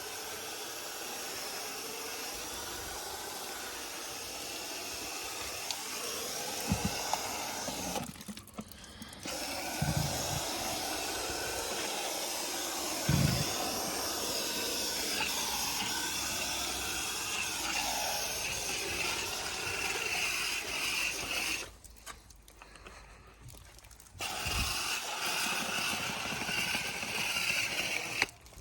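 Water spraying onto and through a heavily clogged air-conditioner condenser coil during a coil wash, a steady hiss of spray that stops briefly twice, with a few dull knocks.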